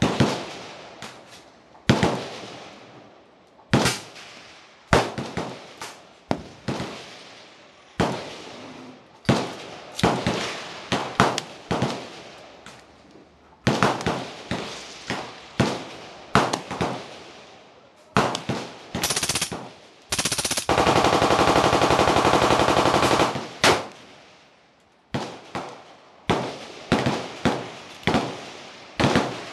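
Machine-gun fire: repeated sharp shots and short bursts, each with an echoing tail, and one long unbroken burst of about three seconds past the middle.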